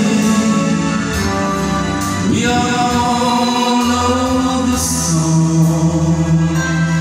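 A man singing a slow song in long held notes over instrumental backing music.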